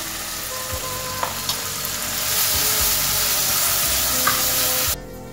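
Ground red chilli-garlic masala paste sizzling in hot oil in a pan, stirred with a wooden spatula. It is a steady hiss that grows a little louder about two seconds in and cuts off abruptly near the end.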